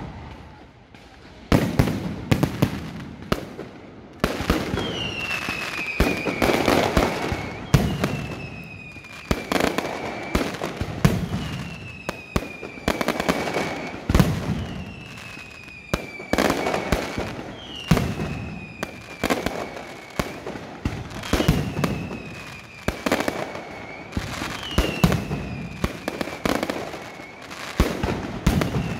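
Aerial fireworks display: shells bursting in clusters of sharp bangs and crackle about every two seconds. From about five seconds in, a high whistle that slides down in pitch recurs with each cluster.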